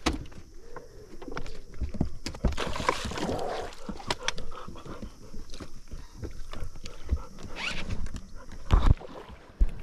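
Irregular knocks and clatter aboard a fishing boat, with a few louder thumps near the end.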